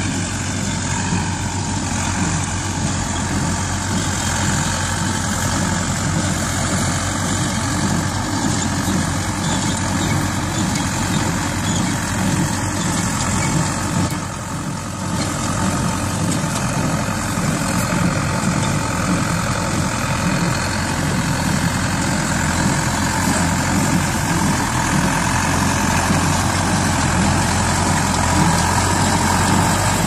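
Zetor 6211 tractor's diesel engine running steadily while it drives a Bamford Super 58 small square baler through the hay, with the baler's machinery running along with it. It grows slightly louder near the end.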